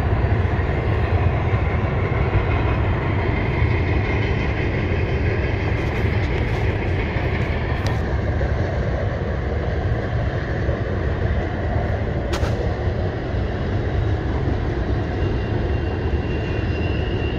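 CN freight train of double-stack container cars rolling past: a steady rumble of wheels on rail.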